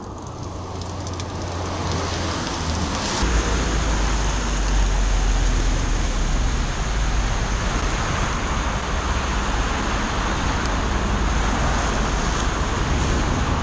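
Heavy rain pattering on the plastic bag wrapped around the camera: a dense, steady hiss that builds over the first couple of seconds, with a low rumble underneath from about three seconds in.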